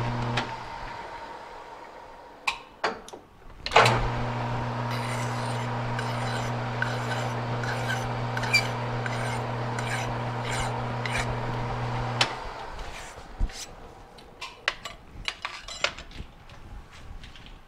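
Metal lathe running while a hand file is stroked against the spinning end of a cut rod to take off the burr, with scraping strokes about twice a second. The lathe starts about four seconds in and stops about twelve seconds in, followed by light clinks of handling.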